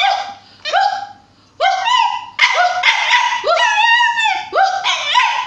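A person barking in imitation of a dog while a young dog answers with barks and yips, the short calls overlapping and coming faster after the first couple of seconds. A longer wavering howl-like call comes near the middle.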